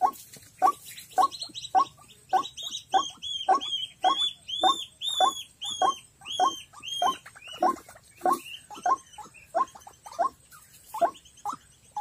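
White-breasted waterhens calling: a steady run of harsh, repeated 'kru-ak' notes, about one every 0.6 seconds, with a higher, arching note laid over them from about two seconds in until about eight seconds in.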